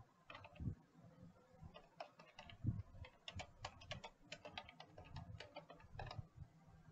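Faint clicking of computer keyboard keys typing a short phrase, a quick run of irregular key taps that thickens about two seconds in and stops near the end.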